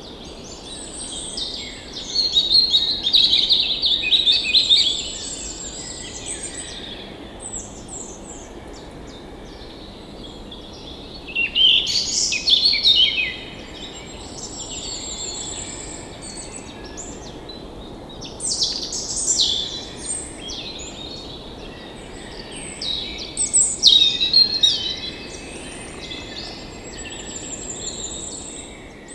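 Several songbirds singing, with overlapping chirps and trills over a steady low background hiss. The song comes in louder bouts about two, twelve, nineteen and twenty-four seconds in.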